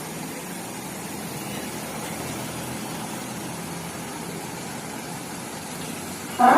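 Bus engine idling steadily between horn plays. Right at the end a loud telolet musical horn melody starts.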